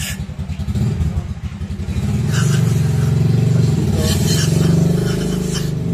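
A motor vehicle engine running with a low, fast pulse, getting louder about two seconds in and easing off near the end. Over it come short hisses of an aerosol can of carb cleaner spraying through a straw into a throttle body.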